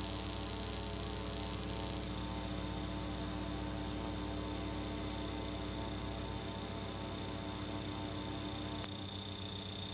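Steady electrical mains hum with many overtones and a faint high whine above it, the hum of an old analog videotape soundtrack; the hum thins slightly near the end.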